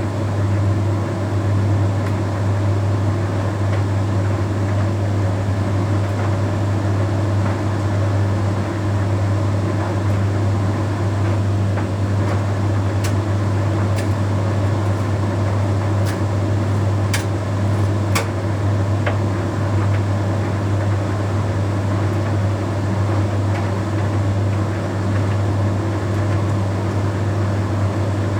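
Bosch Series 6 heat pump tumble dryer running mid-cycle with a steady hum, and a few faint clicks about halfway through.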